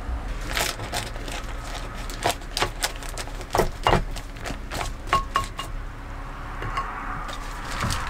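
Irregular light knocks and clicks, with a short ringing clink about five seconds in.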